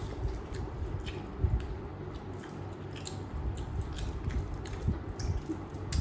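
Close-up chewing and biting of food, with irregular small clicks and crunches.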